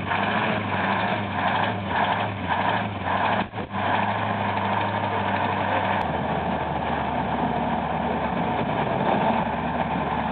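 MAZ-537 heavy military tractor's V12 diesel engine running, pulsing unevenly for the first few seconds, then running more steadily after a brief dip.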